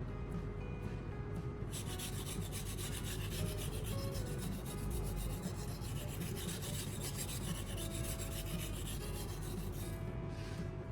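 Steel knife blade stroked back and forth over a whetstone coated with baking soda paste: a steady, repeated gritty rubbing of metal on stone.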